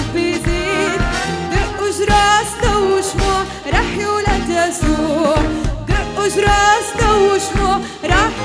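Live band playing an upbeat Arabic Christmas song, led by a Roland digital accordion over a steady beat of about two strokes a second, with a woman singing.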